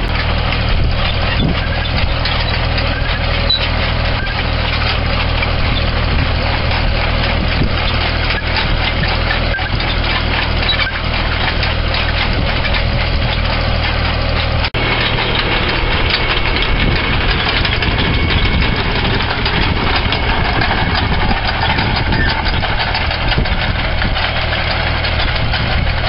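Small farm tractor's engine running steadily under load while it pulls a spinner-type potato digger, with the digger's rotating tines and steel frame rattling and clattering through the soil. A brief drop-out about halfway through.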